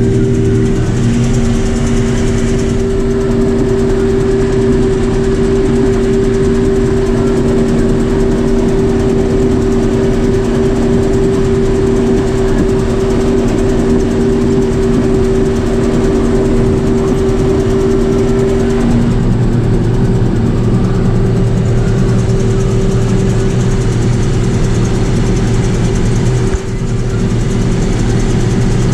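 Combine harvester running steadily at working speed, with a steady whine over the engine drone. About two-thirds of the way through, the whine drops away and a deeper hum comes up.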